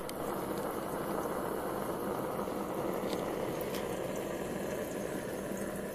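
Propane-fired Warpfive Stirling engine generator running steadily, with its burner flame and small onboard water pump circulating cooling water: a steady, even noise with a faint low hum.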